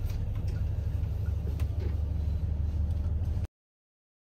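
Steady low rumble, like road noise inside a moving vehicle, with a few faint ticks. It cuts off suddenly about three and a half seconds in.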